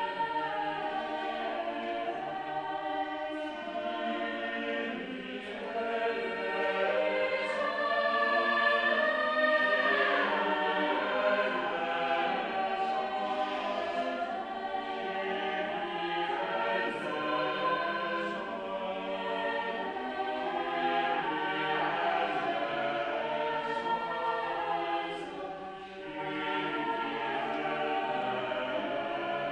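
Church choir of mixed voices singing together, full and sustained in a reverberant church. The singing dips briefly between phrases near the end.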